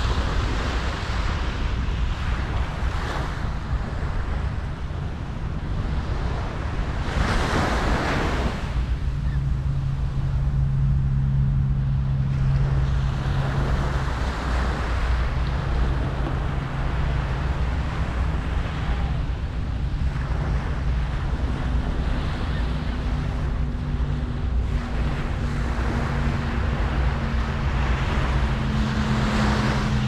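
Ocean surf washing onto the beach, each wave swelling and fading every few seconds, the biggest about eight seconds in, over a constant low wind rumble on the microphone. A steady low hum joins from about nine seconds in.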